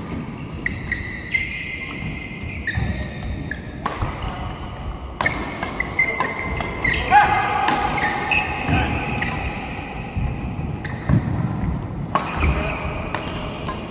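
Doubles badminton rally: sharp racket hits on the shuttlecock spread through it, with shoes squeaking on the court floor and the thud of footfalls between strokes.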